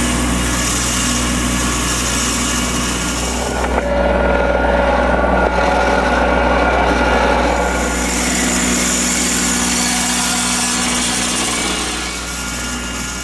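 Small engine of a furrowing machine running steadily while pulling a furrow for planting potatoes; its sound shifts between about four and eight seconds in.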